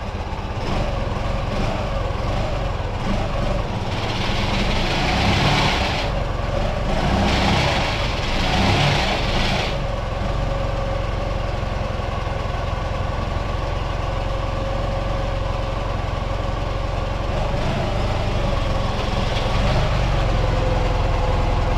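Ural motorcycle's flat-twin engine running steadily, growing louder twice, from about four to six seconds in and again from about seven to nearly ten seconds in.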